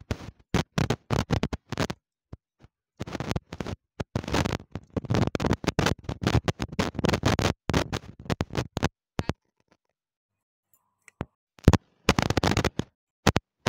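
Close-up crunching and crackling of baked clay being bitten and chewed, in rapid bursts with short pauses and about two seconds of near silence past the middle.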